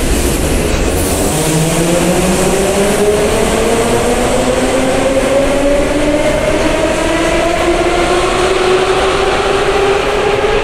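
Moscow metro 81-717.5 train pulling out and accelerating away. Its traction motors whine in several tones that rise steadily in pitch over the rumble of the wheels.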